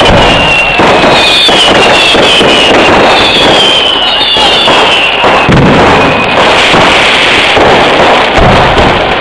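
Vedikkettu fireworks going off loudly in rapid, unbroken succession: a dense crackle of bangs, with the whistles of several rockets gliding down in pitch in the first half.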